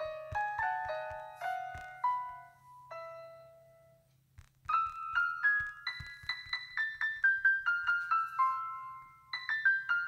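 Background music: a light piano-style keyboard melody of quick single notes, which dies away about four seconds in and starts again just under a second later.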